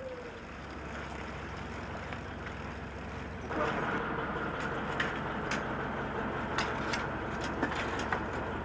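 Fishing boat's engine idling steadily, getting louder about three and a half seconds in. Over it come sharp clicks and knocks from fishing rods and gear being handled aboard.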